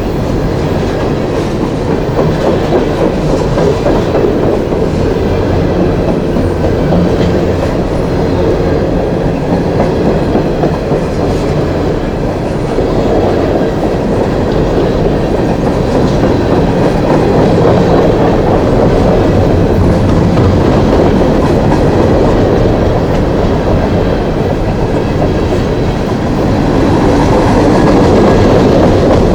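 Long coal train's cars rolling past, their steel wheels running over the rails in a loud, steady, continuous noise that grows somewhat louder near the end.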